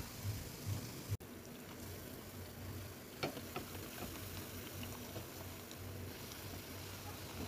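Potato-and-tapioca crackers deep-frying in hot oil: a steady sizzle with scattered small crackles and pops. The sound cuts out for an instant about a second in.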